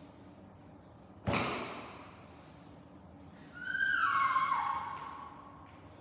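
A single sharp knock, then a squeegee squeaking across wet window glass for about two seconds, its pitch stepping down twice as the stroke goes.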